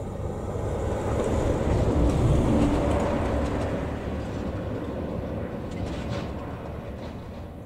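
Wind gusting across the microphone: a low rumble that swells to its loudest about two seconds in, then slowly dies away.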